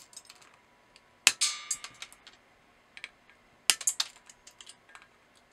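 Wire cutters snipping the excess LED leads off a soldered circuit board: a sharp snap about a second in, another close behind it near four seconds, and a third near the end, with smaller clicks between.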